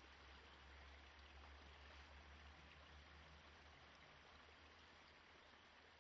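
Near silence: a faint, steady low rumble with a light hiss over it.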